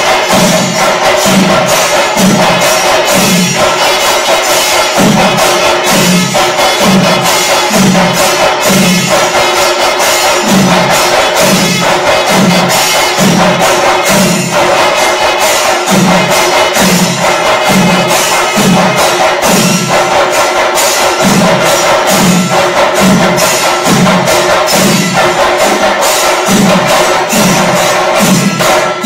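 Chenda drums of a panchari melam ensemble beaten with sticks: a dense, fast stream of stick strokes over a heavy low beat about twice a second.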